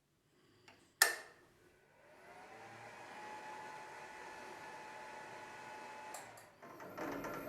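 A sharp click, then a benchtop drill press's electric motor, driven through a frequency inverter, ramps up over about a second and runs steadily with a constant tone. About six seconds in it dips with a couple of clicks, then comes back louder at a different pitch.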